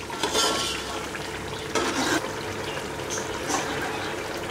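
Mutton in a thick masala gravy bubbling and sizzling in an aluminium pressure cooker pot as its juices cook down, with two louder ladle stirs about half a second and two seconds in.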